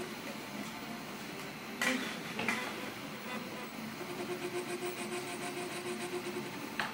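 UP Plus 2 3D printer running a print, its stepper motors driving the extruder head rapidly back and forth while laying hatch infill at a sped-up 100 mm/s. Sharp clicks come twice about two seconds in and once near the end, and a steady hum joins in from about four seconds in.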